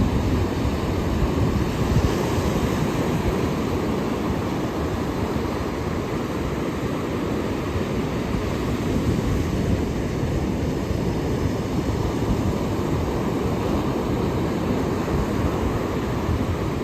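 Ocean surf breaking and washing ashore: a steady, unbroken wash of noise, heaviest in the low range, with no distinct individual wave crashes.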